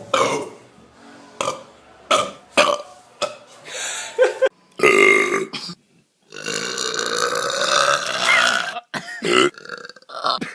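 A run of human burps: several short belches in the first few seconds, a longer one about five seconds in, then one long drawn-out belch lasting about two and a half seconds, followed by a few more short ones.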